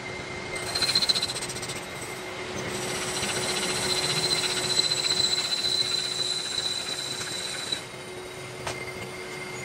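Metal lathe turning an engine cylinder sleeve, the cutting tool scraping on the spinning metal with a steady high squeal over the hum of the running lathe. The squeal stops shortly before the end.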